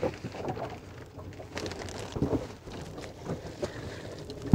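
Dry fish groundbait poured from a plastic bag into a foam box: the bag crinkles and the grains patter and hiss as they land, with a few sharper rustles along the way.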